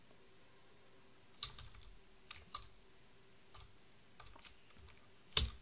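Computer keyboard keystrokes: about seven separate, unhurried key clicks with short gaps between them, the loudest one near the end.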